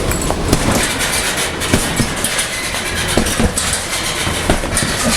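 Fists hitting a punching bag: a run of sharp thuds at uneven spacing, over a loud, steady low rumble of background noise.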